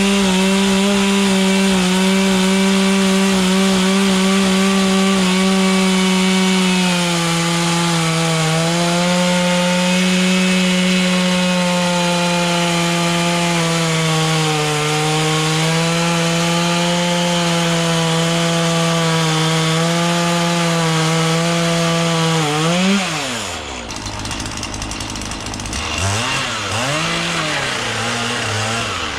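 Two-stroke chainsaw running at full throttle while cutting into a wood log, its pitch sagging as the chain takes load. About 23 seconds in the throttle is let off and the engine drops toward idle, then it is revved up and let down twice near the end.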